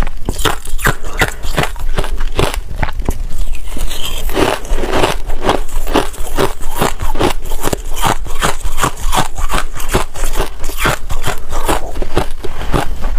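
Crushed ice being chewed close to a clip-on microphone: a steady run of sharp, brittle crunches, several a second.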